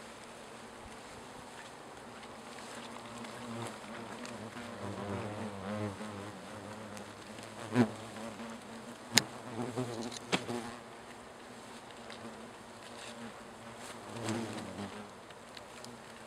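Asian hornets (Vespa velutina) buzzing as they fly close past the microphone, the pitch wavering as they come and go: defending workers from a disturbed colony. Three sharp taps about eight, nine and ten seconds in, which the researcher puts down to hornets striking the camera.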